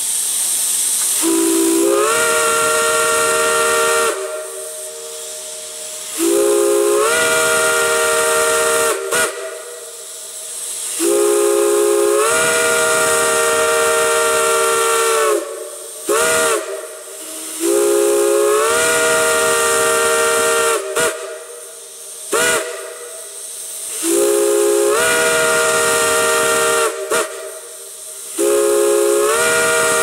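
Chime steam whistle blowing a chord of several notes in long blasts of about three seconds, with short toots in between. Each blast slides up in pitch as the steam comes on, over a constant hiss of escaping steam.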